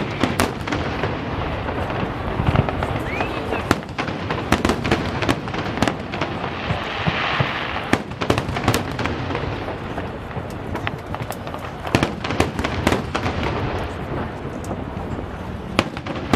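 Aerial fireworks in a finale barrage: many sharp bangs in quick succession over continuous crackling, with a brighter hissing crackle about seven seconds in.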